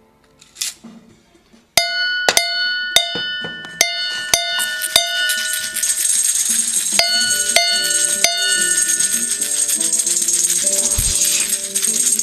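Music: after a few faint short noises, a run of sharp struck notes that ring with clear pitches begins about two seconds in, then builds into a busier passage with a steady high shimmer over it.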